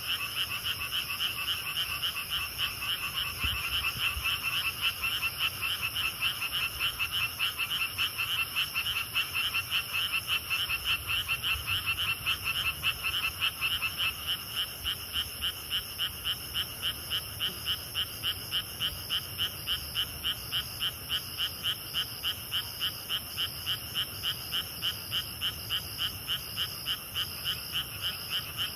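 Chorus of frogs calling in rapid repeated croaks, many voices overlapping at first and thinning about halfway through to a regular beat of two or three calls a second. Grass insects trill steadily at a high pitch behind them.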